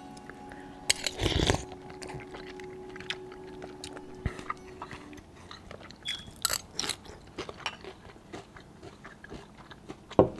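Someone eating sopa de lima, a chicken-and-lime soup topped with crunchy fried tortilla strips. There is a loud slurp from the bowl about a second in, then irregular crunching and chewing, and a spoon knocks against the ceramic bowl near the end.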